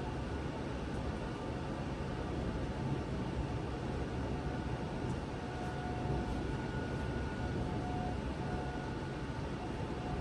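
Steady rushing noise of a severe thunderstorm. A faint tornado siren comes in with a steady tone about halfway through and grows a little stronger near the end.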